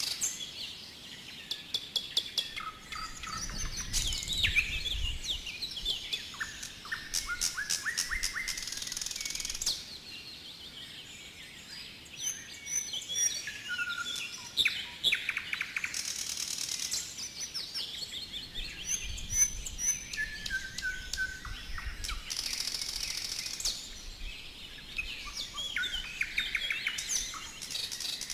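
Songbirds singing and calling, several at once: chirps, rapid trills, and runs of whistled notes that step down in pitch, one run after another.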